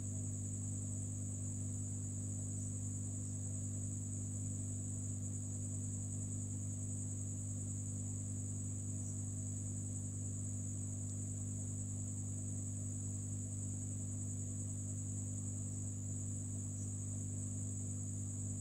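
Steady electrical hum with a thin high-pitched whine above it, from a hot-air rework station heating an IC on a phone's circuit board.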